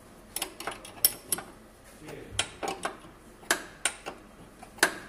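Sharp metallic clicks at irregular intervals from a wrench working the spindle nut of a bush pressing tool, as the control arm bush is drawn into place.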